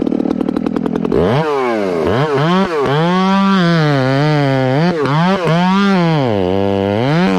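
Two-stroke gas chainsaw ticking over at a pulsing idle, then throttled up about a second in and run in the cut, its pitch dipping under load and picking up again several times.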